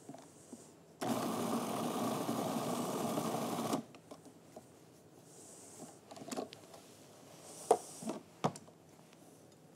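Food processor motor running in one short pulse of about three seconds, starting a second in and cutting off abruptly, chopping a coarse chickpea and avocado mix so that it keeps its texture. A few sharp knocks follow near the end.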